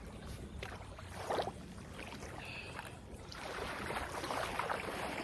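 Outdoor wind and water noise that grows louder about three seconds in, with a brief knock about a second and a half in.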